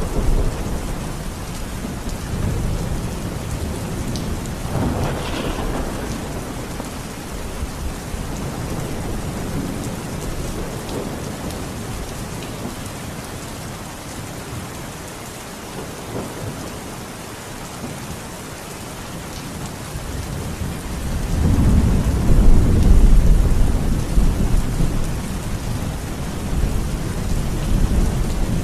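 Steady heavy rain with rolling thunder: a rumble about five seconds in, a quieter stretch, then a louder, deeper roll of thunder swelling in past two-thirds of the way through.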